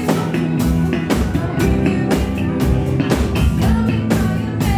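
Live band playing a song with a steady drum-kit beat and electric guitar.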